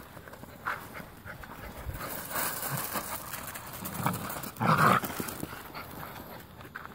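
Eight-week-old American Tundra Shepherd puppies playing, with small dog sounds. One short loud burst comes about two-thirds of the way through.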